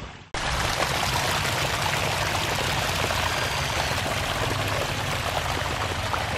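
A small waterfall, a thin stream of water splashing steadily down over soil and rock. It starts abruptly a moment in.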